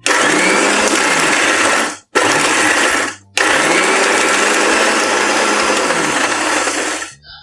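Electric mixer grinder (mixie) running in three bursts with two brief stops, about two and three seconds in. It is grinding a fried seasoning mixture with tamarind juice and coriander leaves in its steel jar, pulsed to crush it into a coarse chutney paste.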